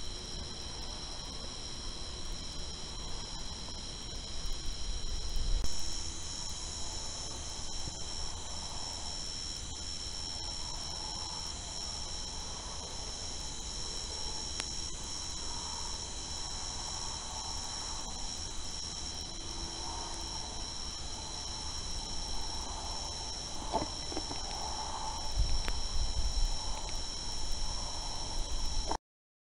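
Night insect chorus, a steady high trilling at several pitches at once. A few low rumbles come about five seconds in and again near the end, and the sound cuts off just before the end.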